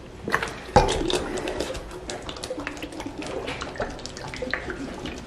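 Water gurgling and glugging as it swirls down through a plastic tornado connector from one bottle into another, air bubbling up through the vortex. A sharp thump about a second in as the bottles are handled, then many small gurgling clicks.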